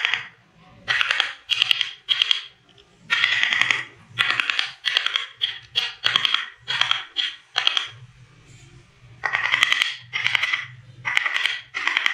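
Wooden mallet tapping the wooden handle of a carving gouge as it cuts into the block: quick runs of sharp taps in short bursts, with a pause about eight seconds in.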